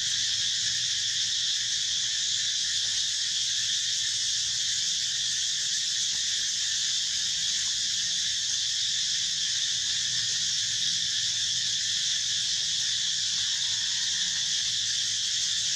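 Steady, unbroken high-pitched hiss of an insect chorus.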